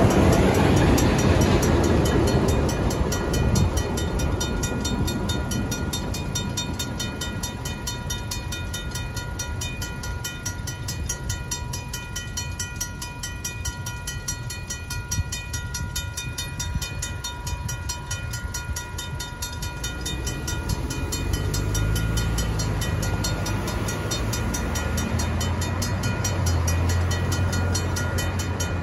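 RACO mechanical crossing bell ringing with rapid, evenly spaced strokes, stopping right at the end as the activation ends. Over the first few seconds the low rumble of the train's last autorack cars fades away, and late on the low hum of car engines comes up as traffic moves toward the crossing.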